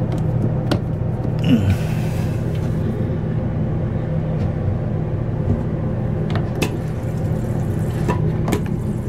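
Steady low mechanical hum with a few light clicks of handling. About two seconds in comes a short rushing hiss as the water supply valve of a Dometic manual toilet is turned back on.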